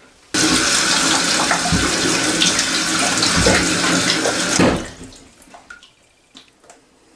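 Newly fitted toilet fill valve opened by hand: water rushes into the cistern, starting suddenly and running for about four and a half seconds, then cuts off as the valve closes. A few faint ticks follow.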